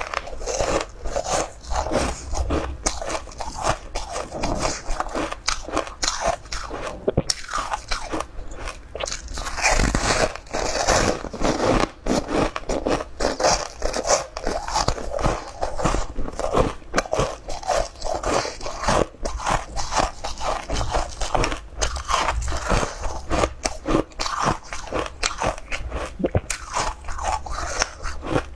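A person biting into and chewing green porous blocks of food, close to the microphone: a dense, unbroken run of sharp crunching clicks.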